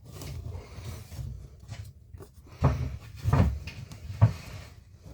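A few dull knocks and thumps over a low rumble, three of them standing out in the second half.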